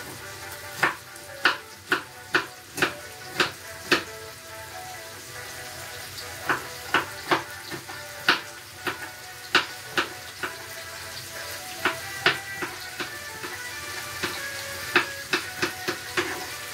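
Knife chopping green pepper on a wooden chopping board: sharp single knocks in runs of a few a second, with a pause of about two seconds after the first run. Underneath, the steady sizzle of minced beef frying in a pan.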